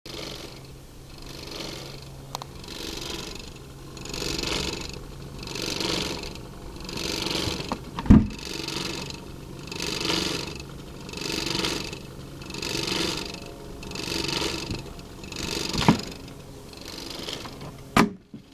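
1976 Magnavox console record changer turning with the stylus resting on the bare platter: a swishing noise that swells and fades about once every one and a half seconds over a steady hum, with three sharp knocks.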